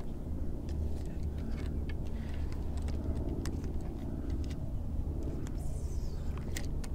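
A steady low rumble, with a few light sharp clicks from the spinning rod and reel being handled.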